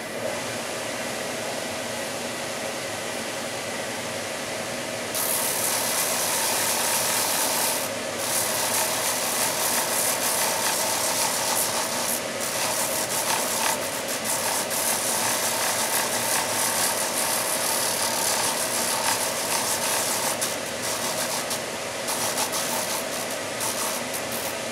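Sanding machine running steadily with a hum, its small sanding drum spinning. From about five seconds in, a wooden intarsia piece is pressed against the small drum and sanded, a loud hiss that comes in passes with short pauses.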